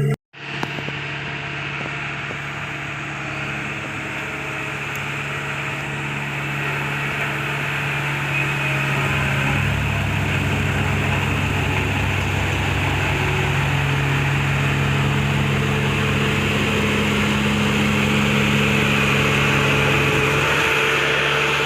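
JCB VMT 860 road roller's diesel engine running steadily. About nine seconds in, a deeper, pulsing note joins it and drops away again shortly before the end.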